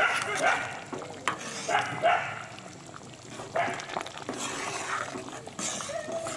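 A metal ladle stirring thick curry in a steel pot, with a few light clinks against the pot. Over it an animal calls in short bursts, a couple at a time, several times.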